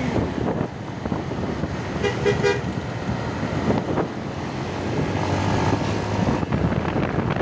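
Road traffic noise with vehicle engines running, and a short vehicle horn toot about two seconds in.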